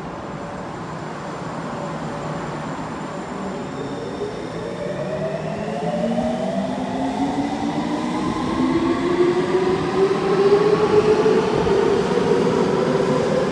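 Electric subway train pulling out of the station, its traction motors' whine climbing steadily in pitch and growing louder as it accelerates, starting a few seconds in.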